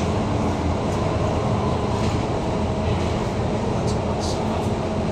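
Bus engine running and road rumble heard from inside a moving double-decker bus, a steady drone with a couple of brief high clicks about four seconds in.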